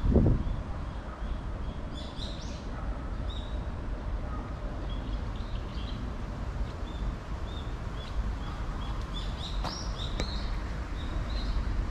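Small birds chirping in many short, high calls over a steady low rumble, with a dull thump right at the start.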